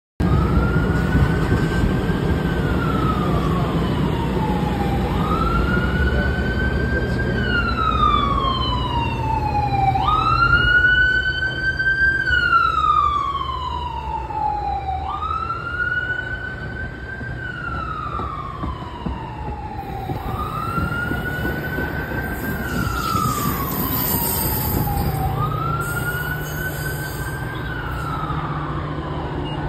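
A siren wailing, its pitch rising and falling in slow cycles about five seconds long, over the low rumble of a Metra bilevel commuter train running past the platform.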